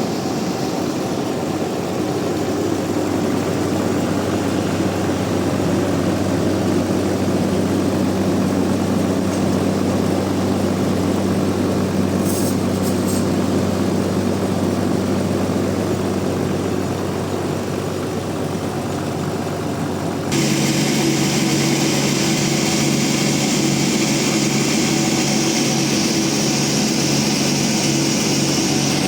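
Band sawmill machinery running with a steady low hum. About two-thirds of the way through the sound changes abruptly to a slightly louder, higher-pitched running hum with a brighter hiss.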